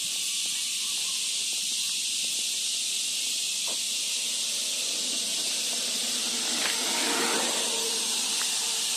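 Insect chorus, such as cicadas or crickets in roadside vegetation: a steady high-pitched hiss that holds unbroken throughout. A fainter, lower rushing noise swells around the middle and eases off again.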